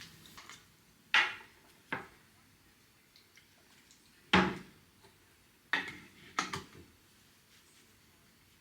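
Crockery being handled: about six sharp clinks and knocks of dishes against each other or a hard surface, each with a short ring. The loudest come about a second in and near the middle.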